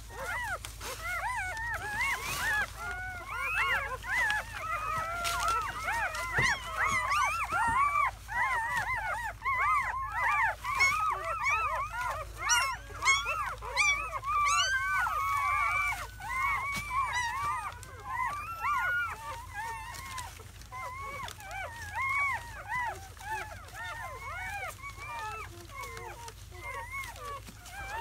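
A litter of newborn German Shepherd puppies squealing and whimpering together: many short, high-pitched cries that rise and fall, overlapping continuously. The cries are loudest in the middle and grow softer in the last third.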